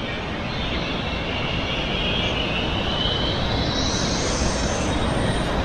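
Zip-line trolley whirring along the cable as a rider goes down, a high whine that rises steadily in pitch as the rider speeds up, over a steady rushing noise.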